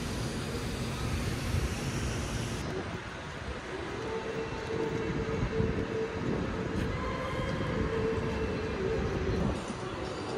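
A train running on rails, with a steady rumble and a held whine through the middle part that stops shortly before the end.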